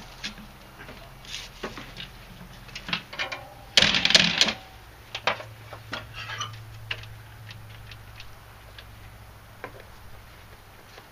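Clicks and light rattles of the ignition key and controls being worked on a Craftsman LT2000 riding mower whose 19 hp Kohler Courage engine does not crank or start. There is a brief louder clatter about four seconds in.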